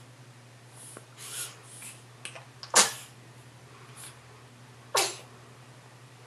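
Newborn baby making two short, sharp huffs about two seconds apart, the first the louder, with softer snuffling breaths before them.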